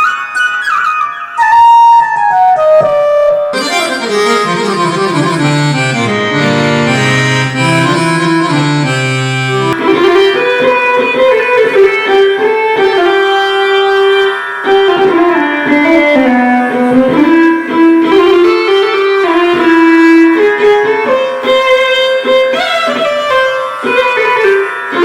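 Korg TR synthesizer keyboard playing a melody on its Indian instrument tones, with pitch bends that glide between notes. Low sustained notes sound under the melody from about four to ten seconds in.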